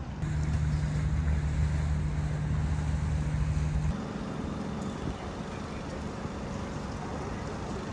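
Boat engine running steadily by the water, with wind noise on the microphone. About four seconds in the sound cuts to a different, higher engine hum.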